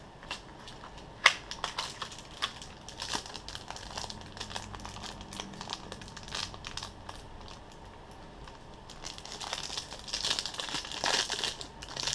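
Plastic wrapping of a trading-card booster pack crinkling and tearing as it is opened by hand. There is one sharp snap about a second in, and the crinkling gets denser near the end.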